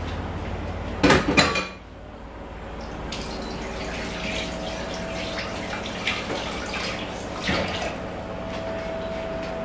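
Thick tomato-and-pepper stew bubbling and popping in a large pot on the stove, small irregular pops over a soft hiss. A couple of sharp knocks about a second in.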